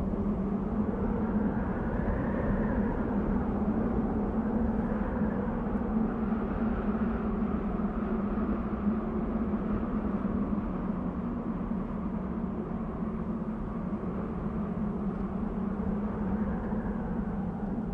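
Desert wind blowing steadily with a low, constant drone and a higher whistle that swells and fades in gusts, rising about two seconds in and again near the end.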